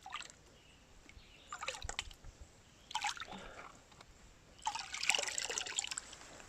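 Water splashing and trickling as a gold pan of gravel is dipped and washed out, in four short bursts, the longest near the end.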